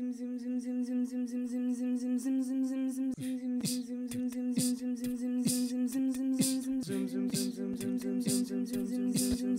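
A cappella voices humming a held chord, joined about three seconds in by beatboxed percussion at about two beats a second. A lower note enters the chord near the end.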